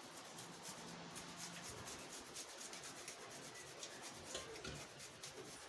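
Fresh ginger root being grated on a hand grater: fast, evenly repeated rasping strokes, fairly faint.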